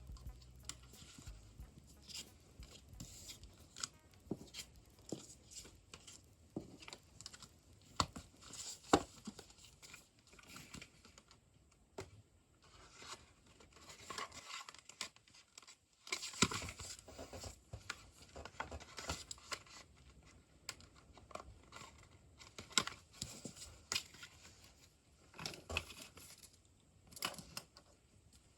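CD album packaging being unwrapped and handled by hand: paper and plastic tearing and crinkling, with scattered light taps and clicks and a short pause about halfway through.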